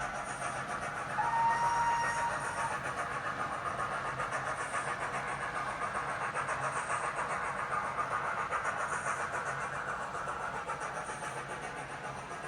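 Model 9F locomotive hauling a long train of open wagons round a model railway layout: a steady rolling rattle of the wheels on the model track. A short steady tone sounds for about a second and a half, starting about a second in.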